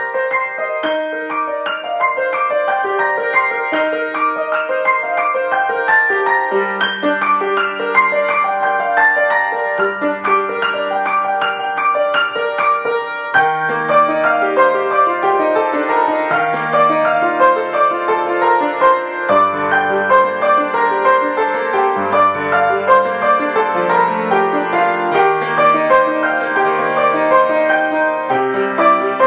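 Grand piano played solo: a flowing improvised piece of many overlapping, sustained notes. It grows fuller about halfway through, with deeper bass notes coming in near the two-thirds mark.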